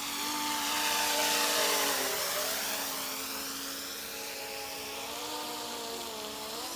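3D-printed electric quadcopter in flight, its brushless motors and propellers whining steadily. It grows louder about a second in, and its pitch dips around two seconds as it passes close and speeds up.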